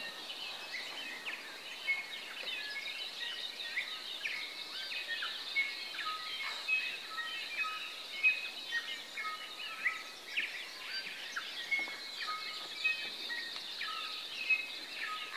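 Birds singing in a dense chorus of many short whistled notes and chirps, over a steady high hiss.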